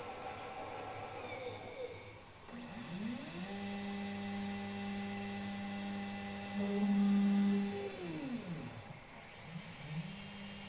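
Electric motor inside a CambTEK Rapid Extraction System spinning up with a rising whine, running steadily for about five seconds and getting louder for a moment, then winding down. It starts up again near the end, a stage of its automatic sample preparation cycle.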